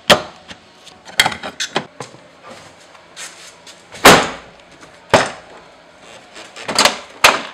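Plastic retaining clips of a Chevrolet Aveo's interior door trim panel popping loose as the panel is pulled off the door by hand: a series of sharp snaps and knocks, the loudest about four seconds in.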